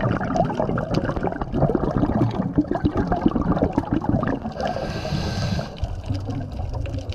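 Scuba regulator breathing heard underwater: a long rush of exhaled bubbles gurgling and crackling, then a brief steady hiss of an inhaled breath about five seconds in, and bubbling again near the end.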